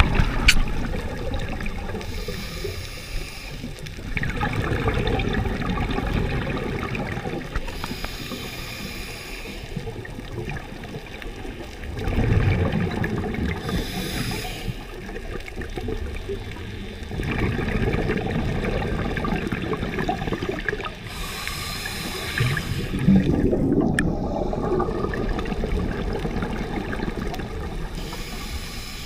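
Scuba diver breathing through a regulator underwater: a short hiss on each inhale, then a longer low rush of exhaled bubbles, one breath every several seconds.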